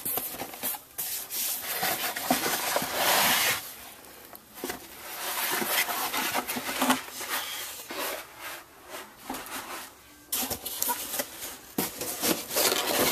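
Packaging being handled inside a cardboard box: a white foam wrapping sheet rubs and rustles against the cardboard in uneven bursts, with brief lulls about four and ten seconds in.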